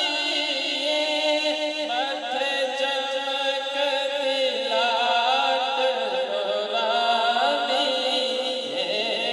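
A man singing a Punjabi naat, a devotional song, solo into a handheld microphone. The vocal line is melismatic and wavering, over a steady held note underneath.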